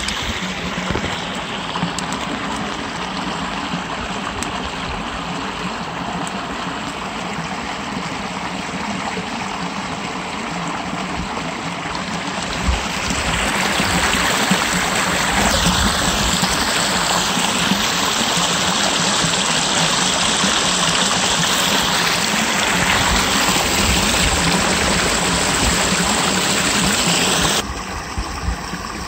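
Water spilling over a small concrete weir into a pool: a steady rushing and splashing that grows louder about halfway through and drops suddenly near the end.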